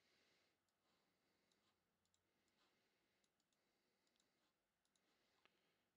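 Near silence: faint room tone with a few scattered soft clicks.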